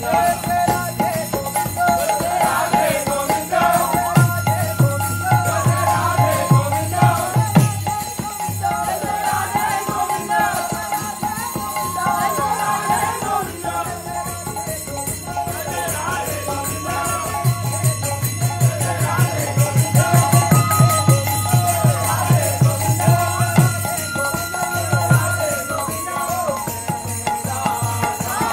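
Devotional kirtan: voices singing over a harmonium, with a mridanga drum and jingling hand cymbals. The drum plays dense runs of strokes twice, near the start and past the middle.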